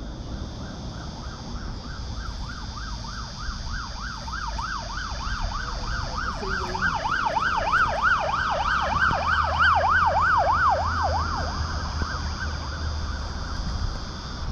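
An emergency-vehicle siren in yelp mode: quick rising-and-falling wails, about two and a half a second, that grow louder to a peak about two-thirds of the way through and then fade away. A steady high drone of insects runs underneath.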